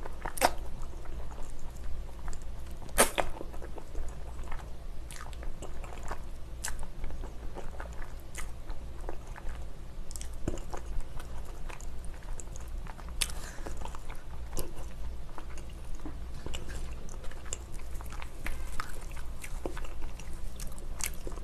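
A person chewing a mouthful of noodles coated in thick spicy sauce, with irregular wet mouth clicks and smacks throughout.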